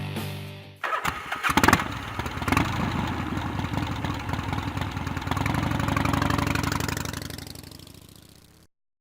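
Background music cuts off in the first second. An engine then starts with a few sharp catches and settles into a steady run, fading out near the end.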